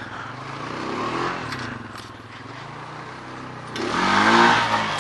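Honda ATV engine running and revving, its pitch rising and falling, with a louder rev about four seconds in.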